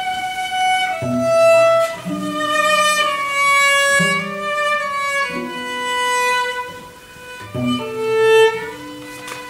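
Cello ensemble playing: a high, sustained melody in the upper register over lower cello notes that start afresh about once a second.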